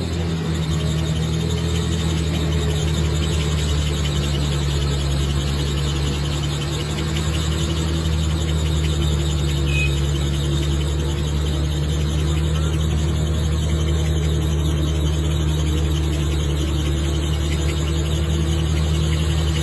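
Excavator's diesel engine running steadily, a constant low drone with no change in pitch.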